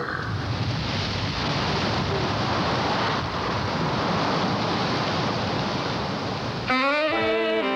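A steady rushing noise with no distinct tones. About a second before the end it stops and music with brass and strings comes in suddenly, with notes stepping up and down.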